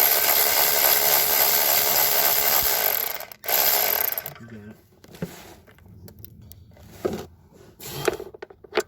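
Cordless electric ratchet running, spinning loosened exhaust manifold nuts off their studs: one long run of about three seconds, a brief stop, then a shorter run. Afterwards come lighter metal clicks and knocks of handling.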